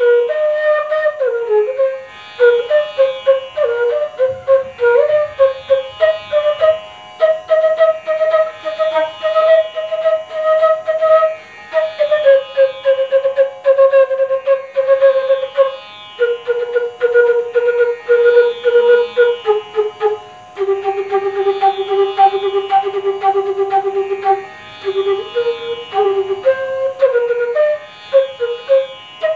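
Bansuri (Indian bamboo transverse flute) playing fast tongued note patterns (tatkar) in Raag Yaman with Sa at G#: runs of quick repeated and stepping notes, broken by a few longer held notes and brief pauses for breath.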